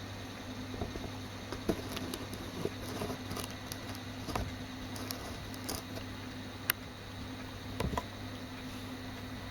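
Victor BR-6400 VHS deck running with a steady low hum, overlaid by scattered irregular clicks and ticks, with one sharp click a little past two-thirds of the way through.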